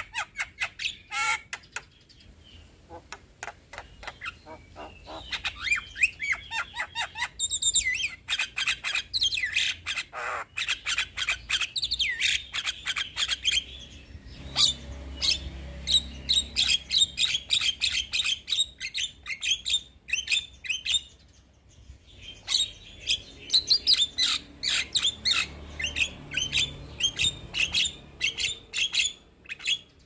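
Young Javan myna singing vigorously: a rapid, almost unbroken run of varied chattering notes, squawks and whistles, with a short pause about two-thirds of the way through.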